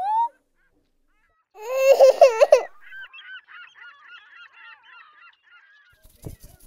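Cartoon sound effects for a claymation crab: a rising whistled glide that ends just in, then about two seconds in a loud wavering honk, followed by a faint run of squeaky chattering. A thump comes near the end.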